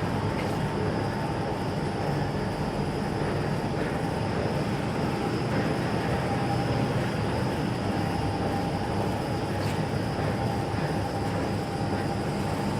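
Plastic bag cold-cutting and heat-sealing machine with two independent lanes running steadily under test: a dense, even mechanical noise with a faint steady whine.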